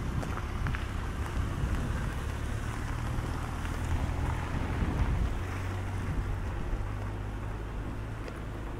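Steady low mechanical hum and rumble, a few fixed low tones over a noisy background, strongest mid-way and easing off near the end.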